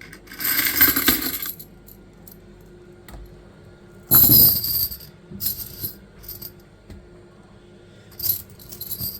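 A heavy solid gold belcher chain's links clinking and jangling as it is handled, in several short bursts, the loudest about four seconds in.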